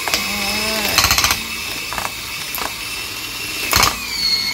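Electric hand mixer with dough hooks running steadily through a dry, crumbly bread dough in a stainless steel bowl: a steady motor whine with a couple of louder clatters, about a second in and near the end.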